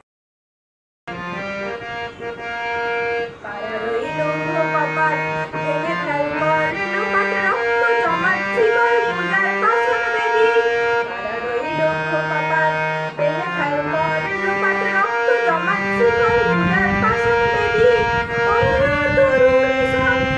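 Harmonium playing a melody in steady held reed notes, starting about a second in, with a boy's voice singing along from about four seconds in.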